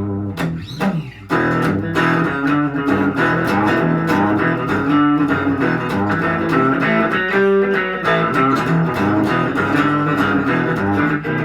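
Guild Aristocrat HH electric guitar played through an old Line 6 amp set with a little gain. Picked chords and notes ring on, with a brief pause about a second in, then continuous playing.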